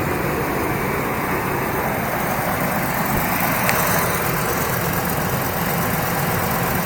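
Car engine idling from a cold start, heard with the bonnet open, with lots of wind noise on the microphone; the suspected valve-train tapping can't really be heard. A single brief click sounds about halfway through.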